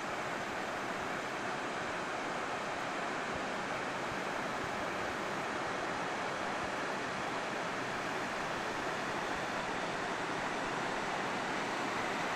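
Steady rush of river water spilling over a low rock ledge in the Spring River.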